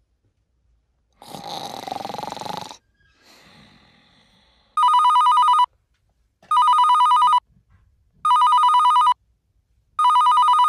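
Electronic telephone ringing: four rings of a rapid two-tone trill, each just under a second long and about two seconds apart. A breathy noise comes before the first ring.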